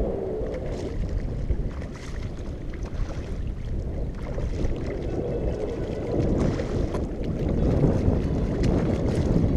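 Choppy shallow water lapping and sloshing close by, with wind buffeting the microphone as a steady low rumble.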